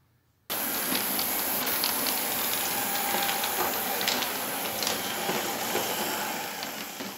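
Two 1:43½-scale model trams running past close by on their narrow-gauge track, wheels and motors making a steady hiss with scattered clicks. It starts suddenly about half a second in and begins to fade near the end.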